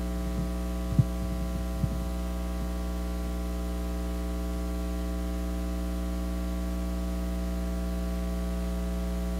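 Steady electrical mains hum through the sound system, with a few soft low thumps in the first two seconds, the loudest about a second in, as the handheld microphone is handled and set back in its stand.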